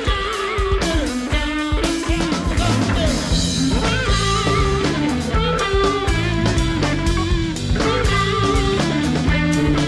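Jazz-rock band playing live: electric guitar over bass guitar, drum kit and Hammond organ.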